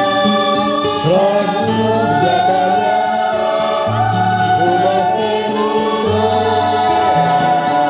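A group of children singing a song together, with instrumental accompaniment and a bass line moving from note to note.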